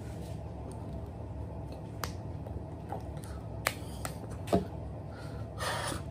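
A few sharp clicks and slaps from a signer's hands and mouth as he signs, scattered over a steady low hum. The loudest comes about four and a half seconds in, and a short breathy rush follows near the end.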